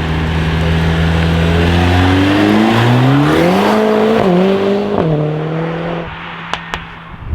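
Mercedes-AMG A45 S turbocharged four-cylinder through a Milltek straight-pipe exhaust with the particulate filter deleted: a steady engine note rises in pitch as the car accelerates, then drops sharply about five seconds in. Two short, sharp cracks come near the end.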